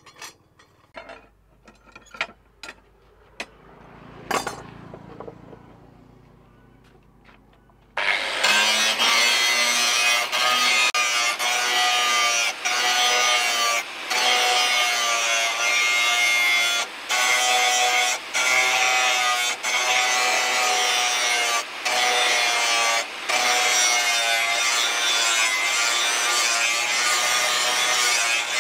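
A few light clicks and taps, then, about eight seconds in, an angle grinder with a flap disc starts grinding the rust off a steel blade. It is a loud, steady grinding noise with a wavering whine, broken by short gaps every second or two.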